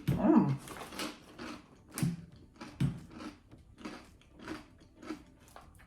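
Someone chewing crunchy baked rice crackers with the mouth close to the microphone: a run of short, crisp crunches about every half second, uneven in loudness.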